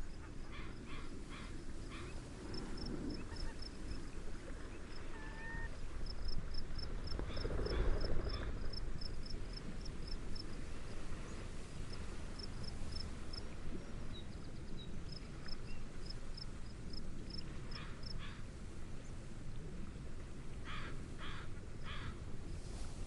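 Steady low rush of wind and gentle waves, swelling briefly about a third of the way in, under a cricket chirping in a fast, regular pulse. Bursts of short, repeated bird calls come at the start and again twice near the end.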